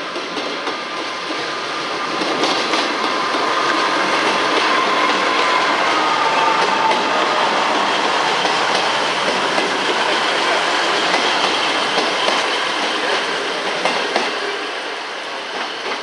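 A train passing close by on the rails, with a steady whine over the noise of its wheels. It builds over the first couple of seconds and eases off near the end.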